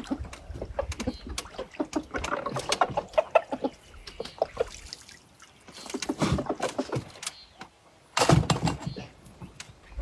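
Water splashing as a hooked fish thrashes at the surface, mixed with clicks and knocks of fishing gear being handled. A louder burst comes about eight seconds in.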